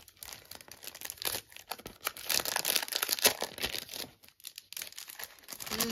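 Clear plastic wrapping on a stack of paper planner inserts crinkling and rustling as it is handled and opened, densest about halfway through.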